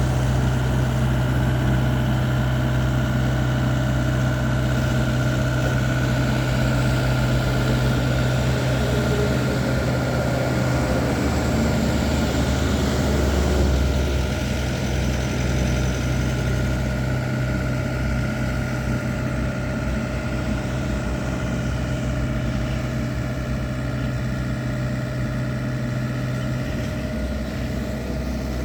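Diesel engine of a TZCO TZ60 excavator running steadily with a constant low hum, easing slightly about halfway through.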